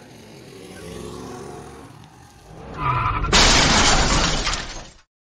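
A motor scooter's engine rising as it approaches, a brief screech about three seconds in, then a loud crash with shattering glass that lasts under two seconds and cuts off sharply: the sound of the scooter crashing.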